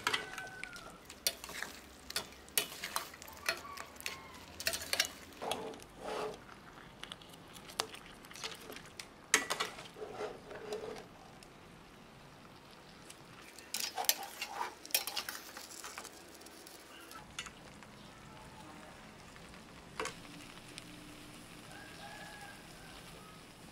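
A metal utensil scraping and clinking against a steel pan as noodles and seafood in thick sauce are stirred and tossed, over a low sizzle. The clatter comes in irregular spells for about two-thirds of the time, then stops, leaving only the faint sizzle.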